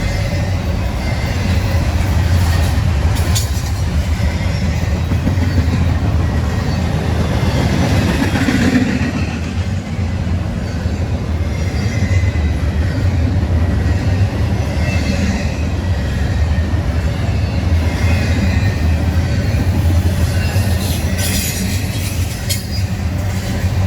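CSX freight train rolling past, the cars giving a steady low rumble with the clatter of wheels over the rail joints and a couple of sharp clacks near the end.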